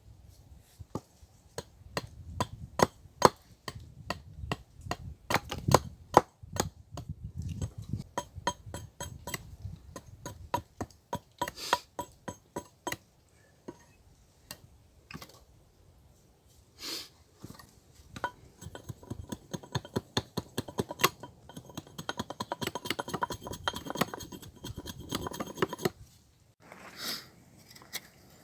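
An irregular series of sharp clicks and knocks, sparse at first and coming thick and fast for several seconds after the middle, then stopping shortly before the end.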